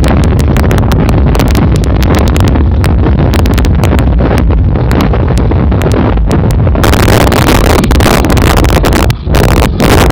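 Wind buffeting the microphone over the rumble of a moving vehicle, loud and crackling with distortion.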